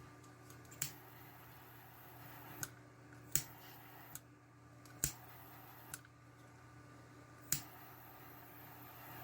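About seven sharp clicks and taps at irregular intervals, small parts and tools being handled during RC truck wiring work, over a faint steady hum.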